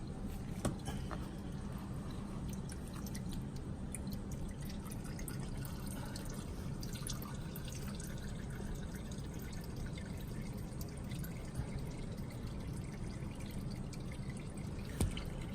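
Engine oil dripping and trickling into a drain pan from the freshly removed oil filter's mount, over a steady low hum. A sharp knock comes about a second in and again near the end.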